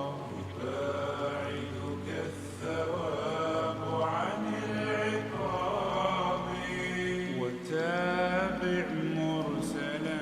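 Slowed, reverberant a cappella nasheed: a male voice sings long, drawn-out notes whose pitch bends and wavers.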